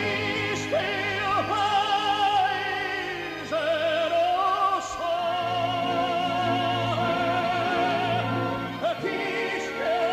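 Operatic singing laid over the footage: a voice holding long notes with wide vibrato, with musical accompaniment beneath, briefly breaking between phrases twice.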